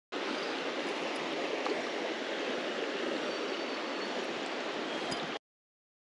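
Shallow creek water running steadily over a riffle of fallen branches. It cuts off suddenly near the end.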